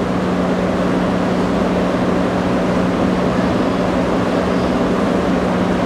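Steady fan drone with a constant low hum and an even rush of air noise.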